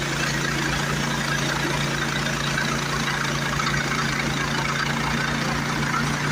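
Small gasoline engine of a portable bandsaw mill running steadily.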